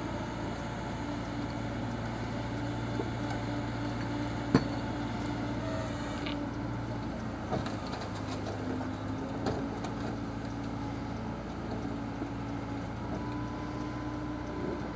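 Tow truck's engine and winch running with a steady low hum, their pitch shifting a little partway through, as a wrecked car is hauled up a rock face on the cable. A few sharp knocks sound over it, the loudest about four and a half seconds in.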